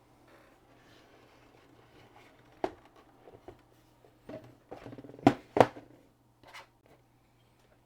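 Handling noises on a workbench: a few scattered knocks and taps, with the two loudest sharp knocks close together about five seconds in, over a faint steady hum.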